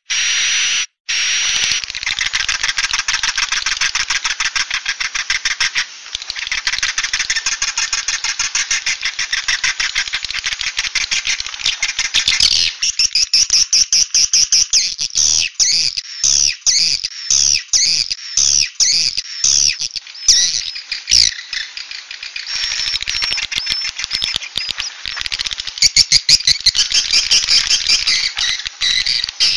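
Swiftlet calls: a 'suara inap' roosting-call recording of the kind played in swiftlet nest houses to draw the birds in to roost. For the first twelve seconds or so it is a dense, rapid buzzing twitter. After that it breaks into quick chirps and rattling runs of clicks with short gaps between them.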